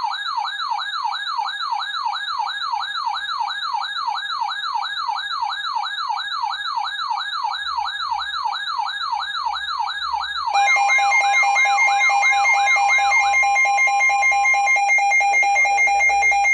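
Electronic emergency alert tones: a warbling siren-like tone rising and falling about three times a second. About ten seconds in, louder steady alert tones with a rapid pulsing take over. Together they mark the start of an Emergency Alert System warning.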